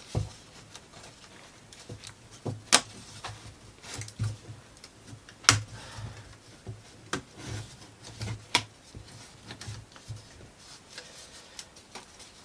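Irregular sharp clicks and light taps of laser-cut plywood model pieces being pressed out of their sheets and handled, with a few louder snaps.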